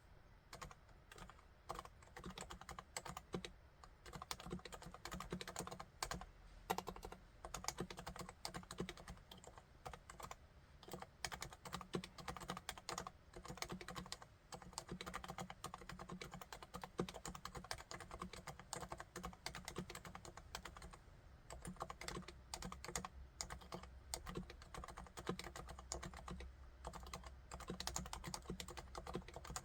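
Continuous typing on a Realforce RC1 75% keyboard with silenced Topre electrostatic capacitive switches (45 g): a dense, uneven stream of soft, muted keystrokes.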